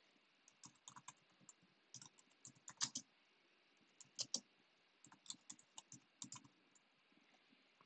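Soft computer keyboard typing in short runs of keystrokes with brief pauses between them.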